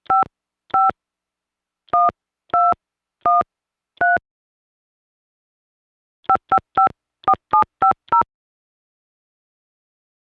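Touch-tone telephone keypad dialing a number: short two-tone beeps, six at an unhurried pace, a pause of about two seconds, then seven in quick succession.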